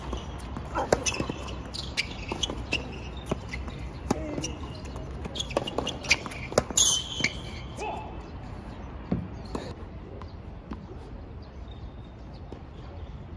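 Tennis ball being struck by rackets and bouncing on the court: sharp, irregular pops, thinning out over the last few seconds.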